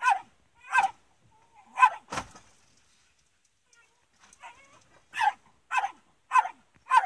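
Fox terrier barking in short, sharp barks at a fox cornered under a house foundation: four barks, a pause of about two seconds, then four more at about two a second.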